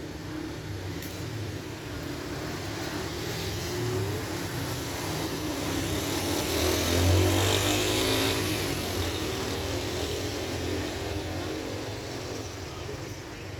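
A motor engine passing by, its hum growing to its loudest about seven seconds in and then fading away.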